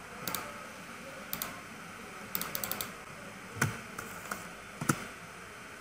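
Computer mouse clicks and keyboard key presses: sharp, scattered clicks, including a quick run of several about halfway through and a few heavier single clicks near the end.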